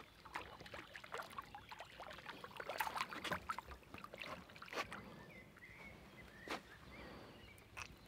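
Faint water splashing and lapping around a small boat on the river, with scattered light knocks and splashes at irregular intervals.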